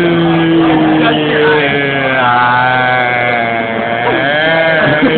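Several young people making long, drawn-out vocal moaning noises together: one low held drone with higher voices over it, one of them sliding up and down in pitch.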